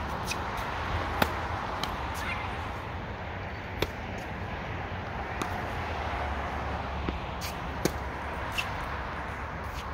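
Tennis balls struck by rackets and bouncing on the court: sharp pops a few seconds apart, the three loudest about a second in, near four seconds and near eight seconds, with fainter ones between, over a steady background hiss.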